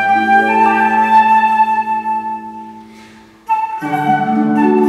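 A flute and concert harp duo playing a classical-style piece: a flute melody over long-ringing low harp notes. The phrase fades out about three seconds in, and a new passage starts abruptly half a second later.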